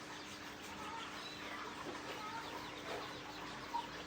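Chickens clucking, with short scattered calls over a faint steady hum.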